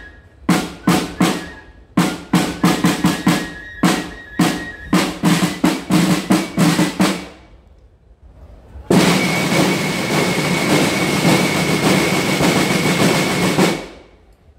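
Marching snare drums with bass drum beating a drum signal for about seven seconds: separate strokes and short figures. After a brief pause comes a sustained drum roll of about five seconds that cuts off sharply.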